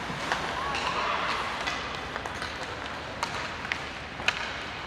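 Ice hockey game in progress: a steady din of rink noise with four sharp clacks of stick and puck, and a voice calling out about a second in.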